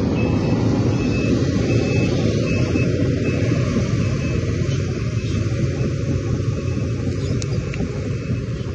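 A Sumitomo crawler excavator's diesel engine running with a steady low rumble as the machine travels. Its travel alarm beeps about once a second and fades out after the first few seconds.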